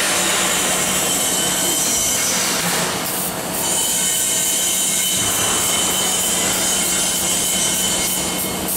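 A 30 kg commercial gas drum coffee roaster running: the steady hiss of its gas burner over the constant hum of its drum and fan motors, dipping briefly about three seconds in.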